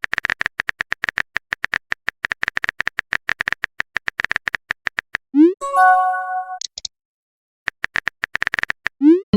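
Phone keyboard tap sounds: a fast run of clicks for about five seconds. Then a message chime opens with a quick rising blip. A short high tone, a brief pause and another run of taps follow, and a second message chime comes at the very end.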